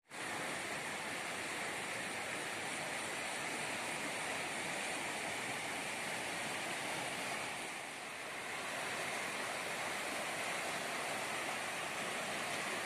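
A swollen, muddy river in spate rushing past: a steady noise of fast-flowing water that eases briefly about eight seconds in.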